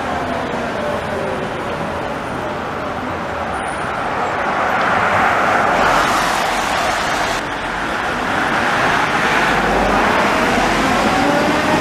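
Tram rolling past close by, a steady rumble of wheels on rails and running gear that grows louder about five seconds in as the cars come alongside, with faint whining tones sliding in pitch. Street traffic runs underneath.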